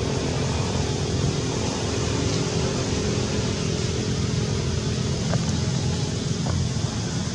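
A steady engine drone with a low hum, like a vehicle running nearby, with two faint ticks near the end.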